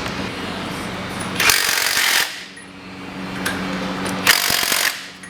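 Impact wrench running on the wheel's lug nuts in two short bursts, each under a second.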